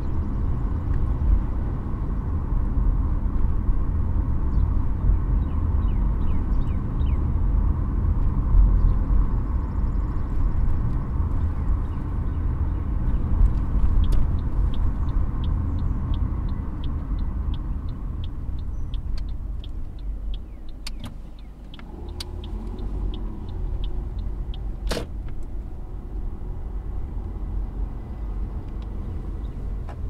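Car driving, with steady road and engine rumble inside the cabin. About halfway, a regular ticking starts at about two ticks a second. The rumble then dips as the car slows, and a single sharp click follows a few seconds later.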